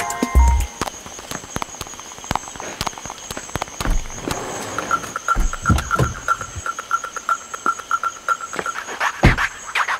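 Frogs and insects calling: many short clicks, with a rapid pulsing call of about five pulses a second in the middle. A louder knock comes near the end.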